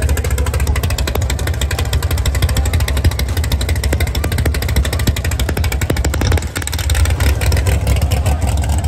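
A loud car engine running close by, its exhaust pulsing rapidly over a heavy low rumble, with a brief drop in level about six and a half seconds in.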